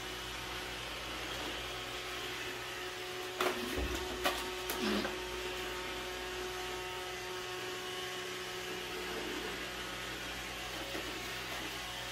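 Robot vacuum cleaner running with a steady whir and hum. A few short knocks come about three and a half to five seconds in.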